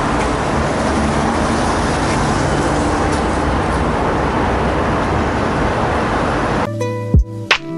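Steady road traffic on a rain-wet city avenue: cars passing, their tyres running on wet asphalt. About seven seconds in, the traffic cuts off abruptly and music begins with sharp beats.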